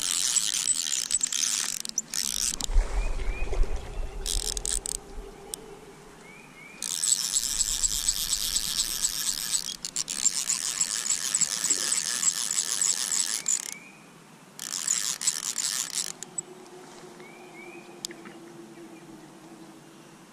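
Fly reel's click-pawl drag ratcheting in several long bursts of rapid clicking as line runs on or off the spool while a hooked fish is played.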